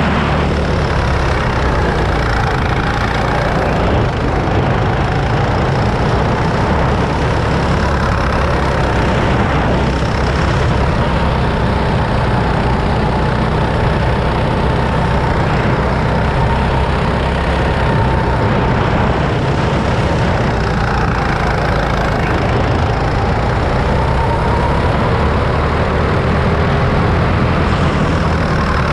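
Go-kart's small petrol engine running while the kart laps the track, a steady drone whose pitch rises and falls gently as the throttle changes through the corners.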